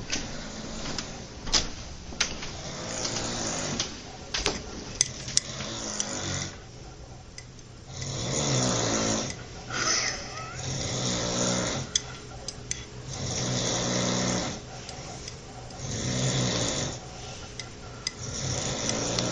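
A man snoring heavily in his sleep, long loud snores coming about every two to three seconds. A few sharp clicks sound in the first five seconds.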